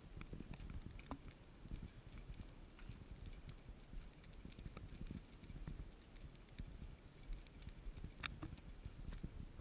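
Faint outdoor ambience: low wind rumble on the microphone with scattered light clicks and patter, and one sharper click about eight seconds in.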